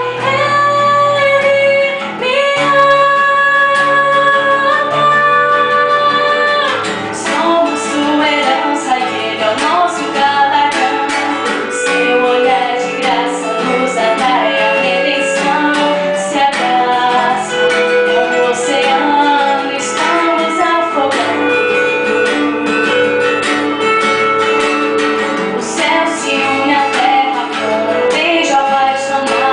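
A woman singing a worship song in Portuguese to acoustic guitar. She holds long notes for the first several seconds, then the guitar picks up with quick plucked notes under her moving melody.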